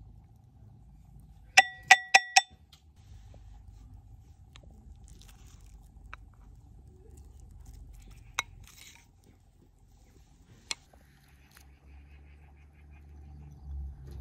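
Four quick ringing clinks about two seconds in, a hard object striking a dish, followed by a few single light taps.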